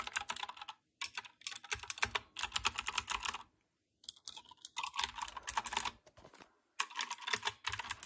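Fast typing on a compact 60% keyboard: rapid runs of key clicks in several bursts separated by short pauses, a sound the typist calls pretty quiet.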